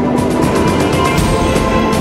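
Background music with a steady beat of about two strokes a second over held tones.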